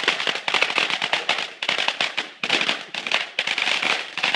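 Consumer fireworks crackling: a rapid, continuous string of small sharp pops with no pause.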